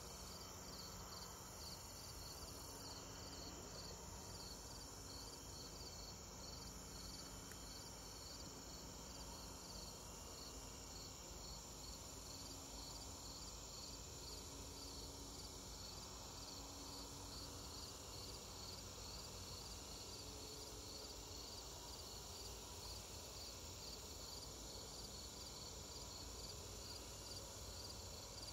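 Faint evening insect chorus: a high chirp repeating about twice a second over a steady high-pitched drone, typical of crickets.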